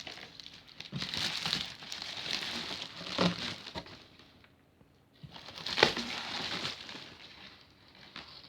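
Bubble wrap crinkling and rustling as it is handled, in two bouts with a short lull between them and a sharp crackle partway through the second.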